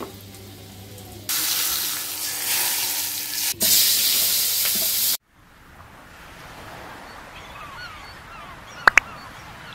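Hot oil sizzling loudly in an aluminium wok as sliced shallots, garlic and red chillies fry for sambal bawang, stirred with a metal spatula; it cuts off abruptly about five seconds in. After it comes a quieter hiss with faint chirps and two sharp clicks near the end.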